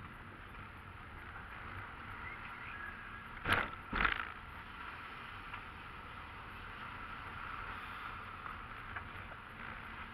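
Car driving, heard from a dashboard camera inside the cabin: steady road and engine noise, with two loud thumps about half a second apart midway through.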